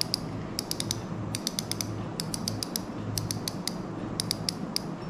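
Shimano Stradic SW4000HG spinning reel clicking as it is worked by hand: about five short runs of sharp, quick clicks, a few clicks each.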